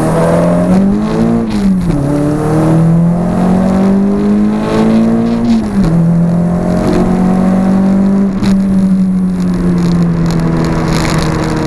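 Renault Clio 172's 2.0-litre four-cylinder engine heard from inside the cabin as the car accelerates on track. It revs up and shifts up twice, with the pitch dropping sharply about two and six seconds in, then runs at a steady, slowly falling pitch.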